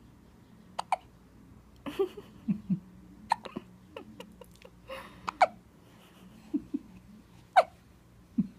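A baby hiccuping: a string of short, sharp hiccups at uneven intervals.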